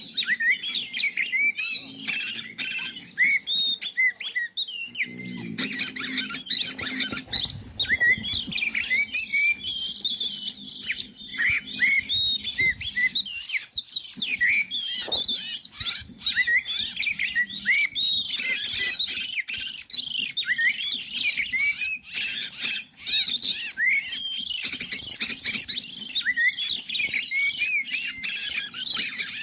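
Oriental magpie-robin calling rapidly and continuously: a dense run of short rising and falling whistles mixed with harsh chattering squawks.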